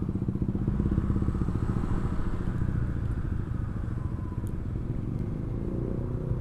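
Honda Vario 125 scooter's single-cylinder engine running at low revs as the bike rolls slowly, with a fast, even pulsing.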